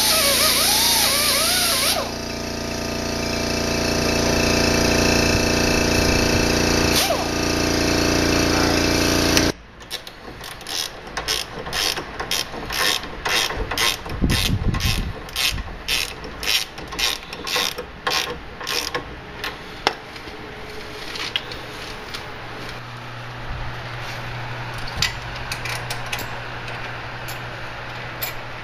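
A small rotary grinder with an abrasive bit runs steadily, cleaning up metal mounting surfaces on the steering knuckle, and cuts off suddenly about a third of the way in. Then a ratchet wrench clicks in quick strokes, about two a second, on the steering hardware, the clicks growing sparser near the end.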